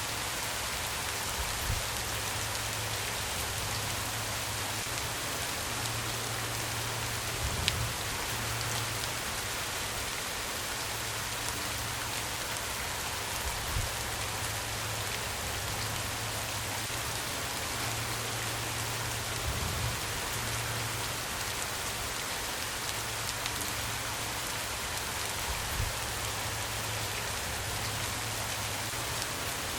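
Steady rain falling, an even hiss, with a few brief low thumps scattered through it, the strongest about eight seconds in.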